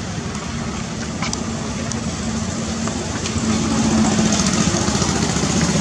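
Steady hum of a motor vehicle engine running, getting louder a little past halfway.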